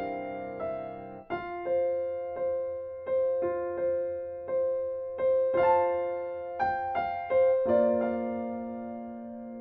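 Slow, gentle piano music: single notes struck about once or twice a second over a repeated middle note, each dying away, then a held chord about three-quarters of the way through that slowly fades.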